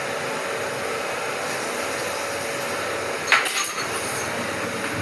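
Steady rushing, hissing noise as part of an explosive diarrhea sound effect, with one sharp knock a little over three seconds in.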